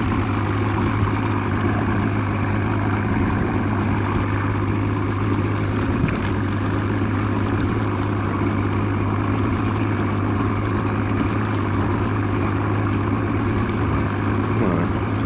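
60 hp VRO two-stroke outboard motor running steadily, one unchanging low hum.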